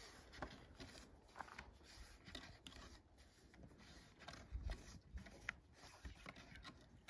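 Faint rubbing and light scattered taps of a thin wooden rolling pin rolling out flatbread dough on a wooden board, with a few soft low thumps, the strongest about halfway through.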